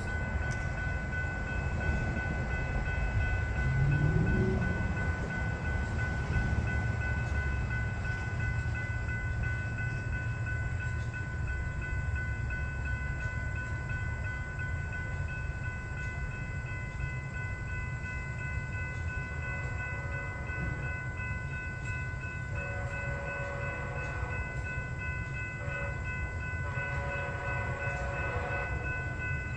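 Distant passenger train led by two Siemens SC-44 Charger diesel locomotives, heard approaching. A low rumble carries steady high tones over it. A pulsing ringing comes in about twenty seconds in and grows louder near the end.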